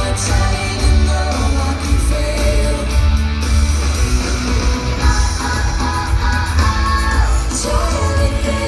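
Loud music with a singer over heavy bass.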